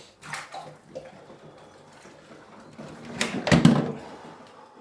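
Clunks and shuffling as a person climbs into a chest freezer filled with ice water, with a louder burst of sound about three and a half seconds in.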